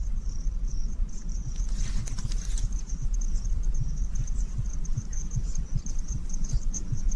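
Insects chirping in a steady, fast high trill over a low rumble, with a short hiss of noise about two seconds in.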